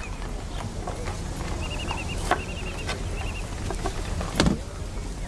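Outdoor ambience: small birds chirping in short repeated phrases over a steady low hum, with scattered light knocks and one short, louder noise about four and a half seconds in.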